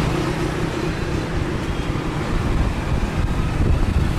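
Steady rush of road traffic and wind heard from a moving vehicle on a busy road, with a faint engine hum in the first second or so.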